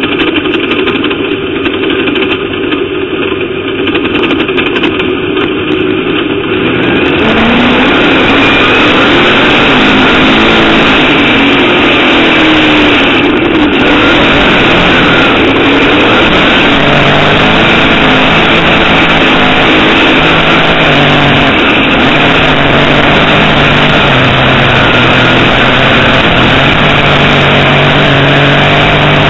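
Dirt modified race car's V8 engine heard from inside the cockpit, loud. It runs at a steady pitch at first; about seven seconds in the throttle opens, it gets louder, and its pitch then rises and falls as the driver accelerates and lifts.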